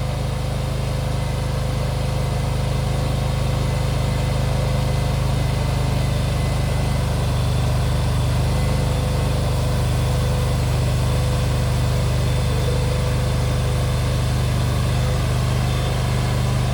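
Nuoman mini skid steer's engine running steadily as the tracked loader is driven, its note rising slightly in the first couple of seconds.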